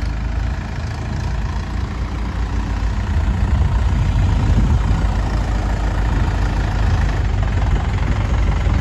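Heavy diesel engine running steadily, growing louder about three seconds in and holding there.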